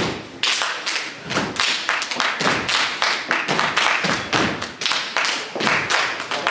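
Step team stepping: stomps on a stage floor and hand claps in a fast, steady rhythm of about three to four hits a second.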